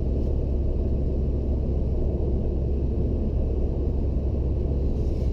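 Steady low road and engine rumble inside a car's cabin while driving along a motorway.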